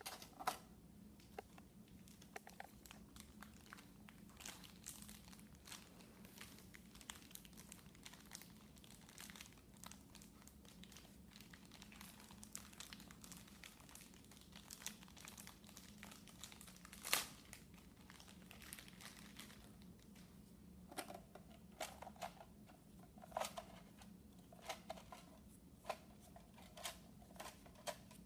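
Faint crinkling and scattered small plastic clicks as foam Nerf darts are handled and pushed into the blaster's 10-dart clip.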